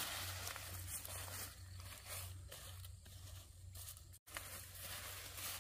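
Crackling, tearing sounds of leaves and stems being pulled and cut, with a brief dropout about four seconds in.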